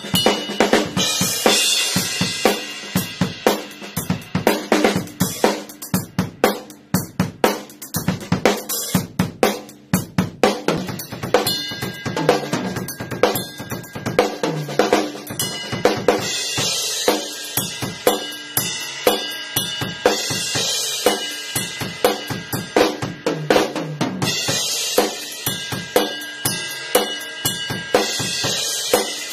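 Acoustic drum kit played solo: fast, dense snare and bass drum strokes, with cymbals washing over several stretches.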